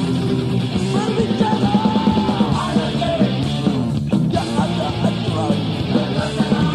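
Punk rock song: a singer shouts and sings a line over a full band with guitar.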